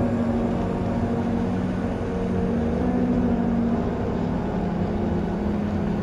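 Shopping-mall ambience: a steady din of hall noise with sustained background music notes that shift every second or so.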